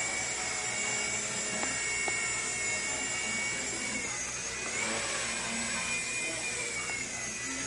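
Walkera CB100 micro RC helicopter in flight, its electric motors and rotors giving a steady high whine. The pitch dips briefly about halfway through and again near the end as the throttle wavers.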